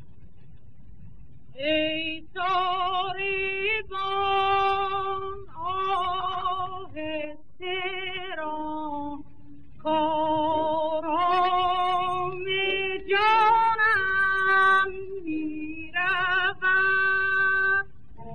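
Woman singing a Persian classical tasnif in Shushtari mode, with a wide vibrato, in phrases broken by short pauses. She comes in about a second and a half in, over a held accompanying note. The sound is from an early-1930s Columbia 78 rpm record.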